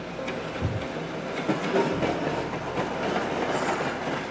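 A train passing on the track, a heavy rumble that swells about half a second in, with its wheels clicking and clattering over the rails.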